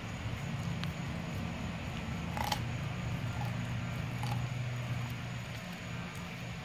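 Blue Bay Shepherd wolfdog chewing raw chicken on the bone, with a few sharp crunches, the loudest about two and a half seconds in, over a steady low hum.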